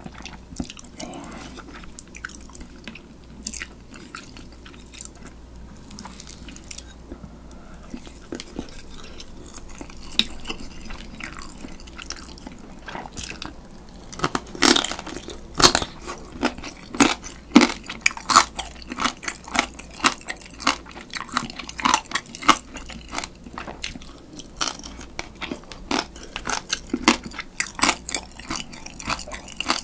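Close-miked chewing of spicy marinated raw crab (yangnyeom-gejang). It starts as soft, wet chewing. About halfway through the crab shell is bitten into, and loud, sharp crunches follow several times a second as the shell is chewed up.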